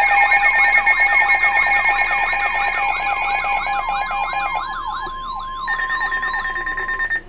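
Layered electronic emergency alert tones: several steady alert tones sounding together with an electronic siren sweeping up and down several times a second. The mix of tones changes about two-thirds of the way through, then cuts off suddenly.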